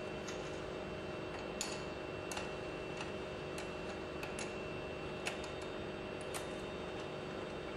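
Sparse, irregular metallic clicks and clinks of hand tools on steel pump parts, a few each second or less, over a steady low hum.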